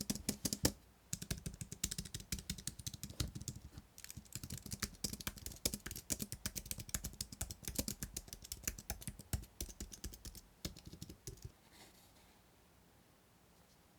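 Fast typing on a compact Apple Magic Keyboard, its scissor-switch keys clicking lightly in quick runs with a couple of short breaks. The typing stops about three quarters of the way through.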